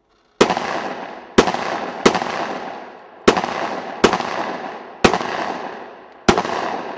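Seven pistol shots from a .40-calibre Glock handgun, fired at an uneven pace roughly a second apart, each followed by a long echoing decay.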